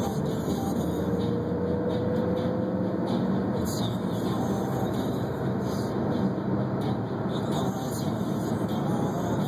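Steady road noise of a car driving at speed: tyre hum and engine running at an even level, with a faint tone rising slightly in pitch during the first few seconds.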